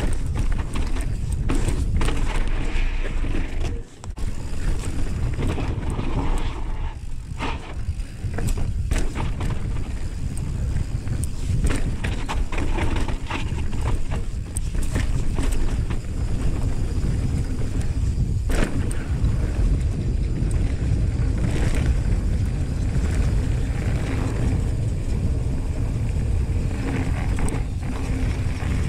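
Mountain bike rolling down a dirt and rock trail: a steady wind rumble on the microphone over tyres on dirt and rock, with frequent clicks and rattles from the bike, and a brief lull about four seconds in.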